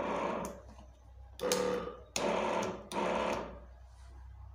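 Electric knapsack sprayer's pump motor switched on in short buzzing bursts of under a second. One burst ends just after the start and three more follow from about a second and a half in, each starting with a click.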